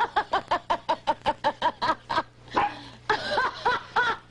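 A woman laughing loudly and scornfully with her head thrown back: a fast, staccato run of about a dozen 'ha' pulses, a short break about two seconds in, then a few more.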